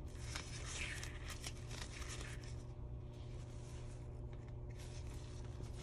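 Wooden stir stick scraping and clicking around the inside of a small plastic cup, stirring resin that holds small bat-shaped glitter pieces, over a steady low hum.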